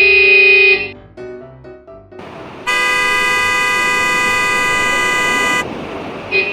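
Cartoon horn sounds with music: a short steady toot ending about a second in, a few quick musical notes, then a rushing noise carrying a long, steady horn blast of about three seconds. Another toot starts right at the end.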